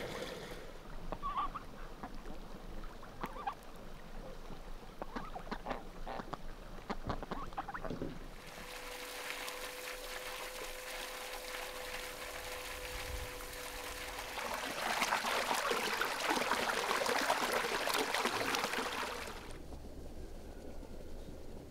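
Chickens clucking and pecking, then a stream of running water splashing over fish being rinsed by hand for about eleven seconds before it stops.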